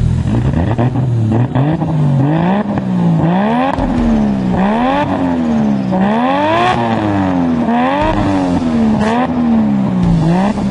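Car engine being revved up and down over and over, its pitch rising and falling about once a second.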